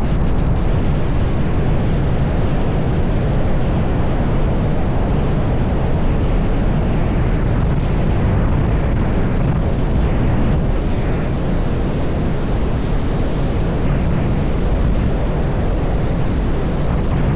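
Loud, steady rumble of wind and road noise from a car travelling at highway speed, heaviest in the low end.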